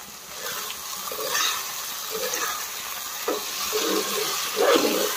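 Mushrooms frying in masala and oil in a kadai, sizzling steadily, while a spatula stirs and scrapes against the pan in several irregular strokes, the strongest near the end.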